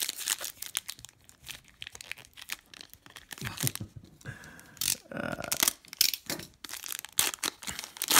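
Trading card pack wrapper being torn open and crinkled, with irregular crackling rustles throughout.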